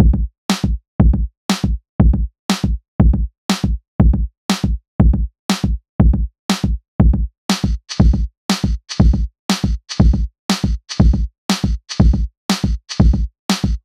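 Background music with a steady electronic drum beat and a heavy kick about twice a second. Brighter, hissy percussion joins about halfway through.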